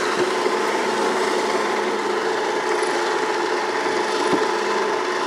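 Toro eFlex battery-electric walk-behind reel mower, with a groomer unit fitted, running and cutting grass: a steady electric whine from the spinning reel over a rasping hiss of the cut.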